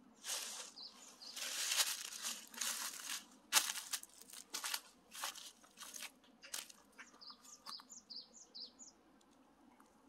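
Dry fallen leaves crunching and rustling in irregular bursts, as from someone stepping through leaf litter. Near the end, a quick series of short high bird chirps.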